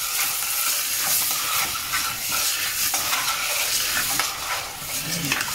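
Chopped onions frying in oil in a saucepan, sizzling steadily as a spoon stirs them against the pan. The onions are in the softening stage on low heat.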